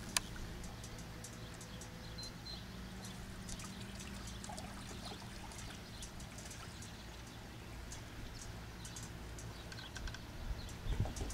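Water trickling and splashing faintly, with many light ticks, over a steady wind rumble on the microphone that gusts stronger near the end.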